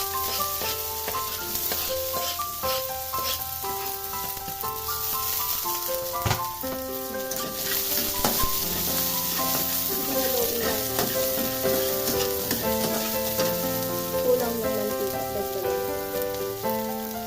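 Chopped onion and garlic sizzling as they sauté in hot cooking oil, over background music.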